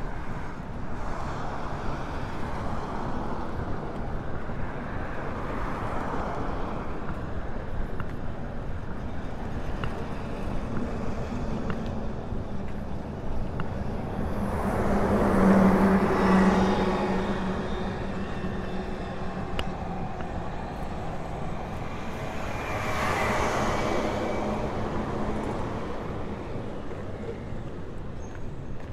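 Street traffic: motor vehicles passing one after another over a steady rumble. The loudest goes by about halfway through with a steady engine hum, and another passes some seconds later.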